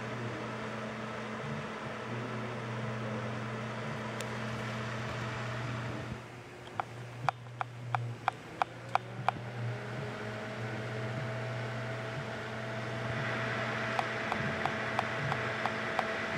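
Computer cooling fans running with a steady hum. About six seconds in the sound changes and a run of about nine sharp clicks follows, roughly three a second, while a new steady whine rises in and holds. Later a hiss grows and a few more clicks sound.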